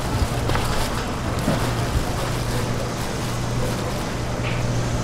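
A steady low mechanical hum under a constant noisy background, typical of a busy market stall, with a few soft knocks now and then.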